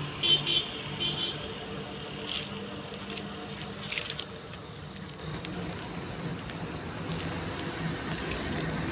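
Rustling and crackling of leaves and weeds in dense undergrowth, sharpest in the first second and again around four seconds in, over a low steady engine hum.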